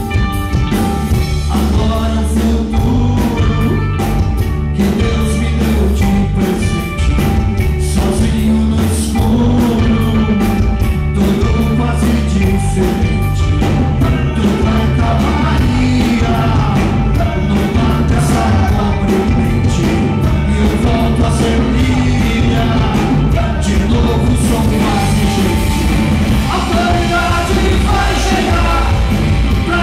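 Live rock band playing: electric guitar, bass guitar and a drum kit with steady drum hits, and a male singer's vocals over the band.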